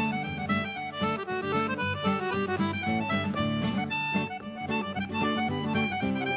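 Accordion playing a fast traditional reel: quick runs of notes over a steady beat.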